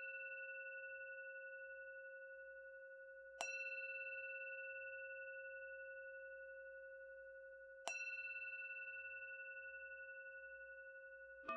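A struck bell tone sounding three times about four and a half seconds apart, each ringing out slowly with a gentle wavering. Right at the end a different, lower chord of ringing tones comes in.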